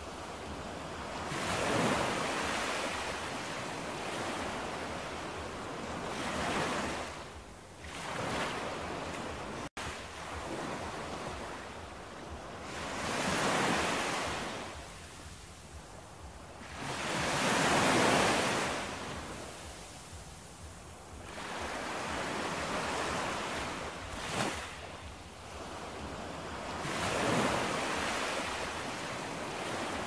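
Ocean surf: waves washing in, each one swelling to a rush and fading away again, about every four to five seconds, with a very brief dropout just before ten seconds in.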